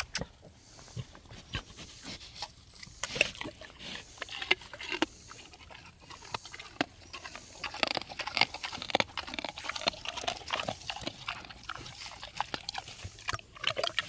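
A sow and her piglets grunting and snuffling close up: short, irregular grunts and sniffs that come thicker in the second half.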